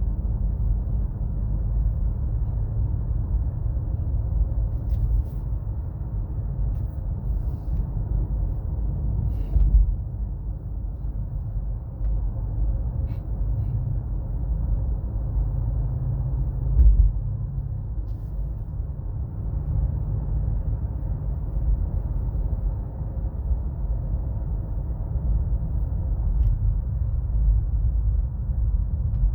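Road and tyre rumble heard inside a 2017 Acura MDX while driving, with a faint steady whine above it. This is the whine the owner hears rising with speed and places at the front passenger side. Two brief thumps come about ten and seventeen seconds in.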